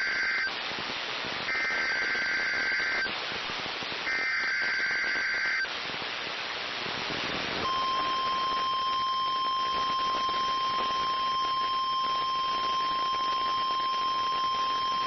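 Emergency Alert System SAME header: the end of one buzzy digital data burst, then two more about a second and a half each with short gaps between, over radio hiss. After a brief gap of hiss, NOAA Weather Radio's steady single-pitched 1050 Hz warning alarm tone starts about eight seconds in, announcing a new alert.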